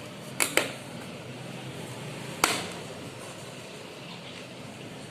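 Three sharp clicks over low steady room noise: two in quick succession about half a second in, and a single louder one about two and a half seconds in.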